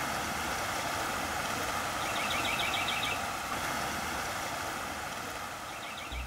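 Steady rushing of a fast, flooded river. A songbird's rapid high trill comes twice, about two seconds in and again near the end.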